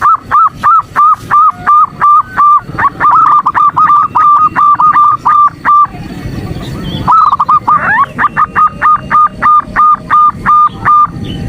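Female zebra dove (perkutut) calling to males: fast runs of short, clipped notes, about four or five a second. One run lasts about six seconds, breaks off for about a second, then a second run starts.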